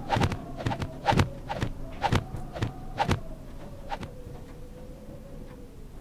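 Sound-effect track: a wavering tone that slowly slides down in pitch, under a run of sharp clicks and taps that come thick for about three seconds and then thin out.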